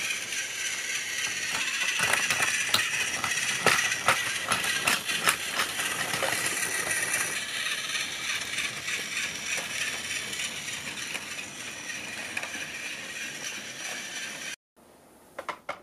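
Battery-powered Plarail toy trains running on plastic track: a steady whirr of small motors and gears with many sharp clicks. It cuts off abruptly near the end, followed by a few light knocks.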